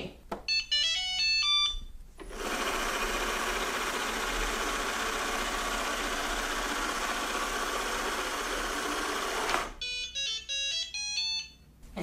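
Shark ION Robot vacuum playing a short tune of electronic beeps as it answers the dock button, then running with a steady whir as it drives back to its charging dock, then another run of beeps near the end as it docks and starts charging.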